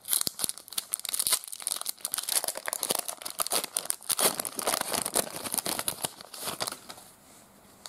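Foil trading-card pack wrapper crinkling and tearing as it is ripped open by hand, a dense run of fine crackles that dies away about seven seconds in.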